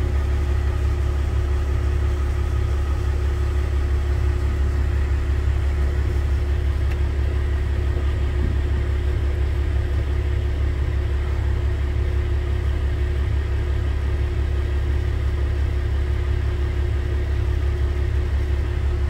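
Vehicle engine idling steadily, a constant low rumble with a faint steady hum above it and no change in pitch or level.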